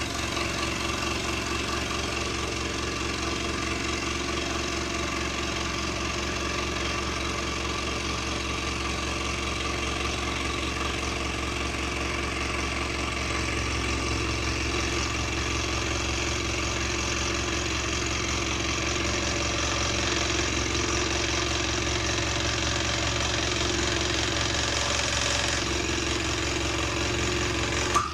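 Electric scroll saw running with its blade reciprocating steadily, cutting through a 30 mm-thick softwood block. There is a sharp click at the very end.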